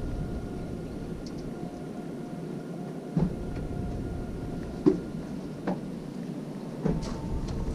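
Outdoor background noise: a steady rumble with a faint hum, broken by four light clicks or knocks.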